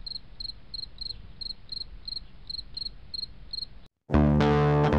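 Insect chirping in a steady rhythm of about three high chirps a second over a low hum. It cuts off just before four seconds in, and after a brief gap much louder electric guitar music starts.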